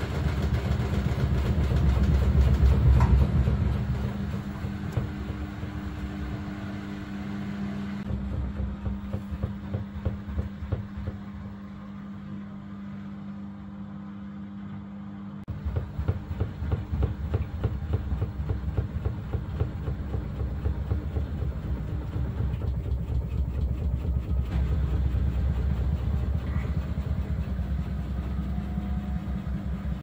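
Samsung WW90T684DLHS7 front-loading washing machine spinning and balancing its load: a steady hum over a low rumble with fast rattling, loudest a few seconds in, dropping away in the middle and rising again suddenly about halfway through. The owner blames the drum pressing on the door and front housing, a noise that new shock absorbers and a new door seal have not cured.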